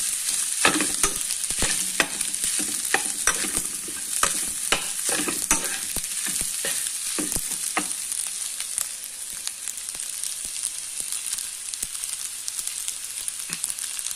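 Fried rice sizzling in a frying pan as a metal spatula stirs and scrapes it. Quick clacks of the spatula against the pan come frequently for about the first eight seconds, then thin out, leaving mostly a steady sizzle.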